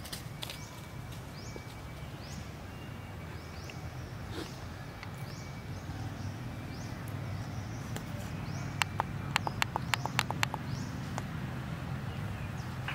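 Outdoor ambience: short, high, rising chirps repeat about once a second over a steady low hum. About two-thirds of the way through comes a quick run of about a dozen sharp clicks lasting under two seconds, the loudest sounds.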